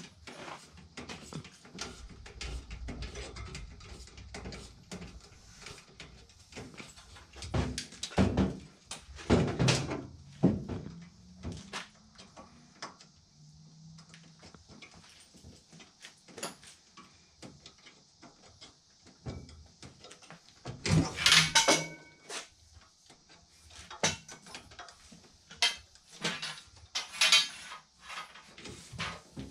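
Irregular knocks, scrapes and clunks of hands handling and fitting a furnace's sheet-metal cabinet around its blower compartment, with a cluster of louder knocks about two thirds of the way through.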